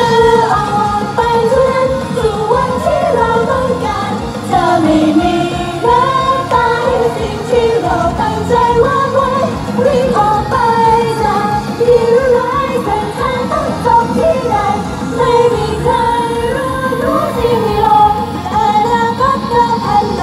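Female group vocals singing a pop song over a backing track with a steady beat, played loud through the stage PA.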